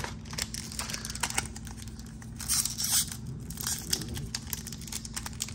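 Foil wrapper of a Pokémon booster pack tearing and crinkling, a run of crisp rustles with a louder rip about two and a half seconds in.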